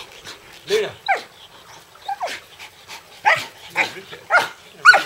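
Belgian Shepherd (Groenendael) giving a string of about seven short, high barks during play, several sliding down in pitch.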